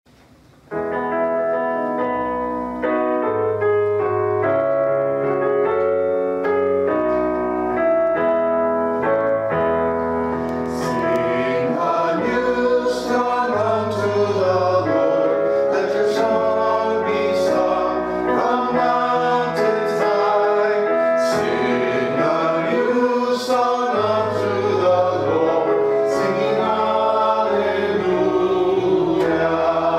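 A hymn: a keyboard introduction starts about a second in, and a choir joins in singing about ten seconds in.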